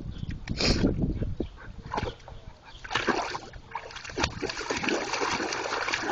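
A dog plunging its head into a barrel of water, digging for balls at the bottom: irregular splashes, then more continuous splashing and sloshing from about halfway through.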